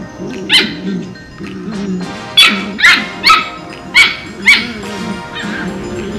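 Border Collie puppies barking: short, sharp barks, one early and then five in quick succession between about two and a half and four and a half seconds in, over background music.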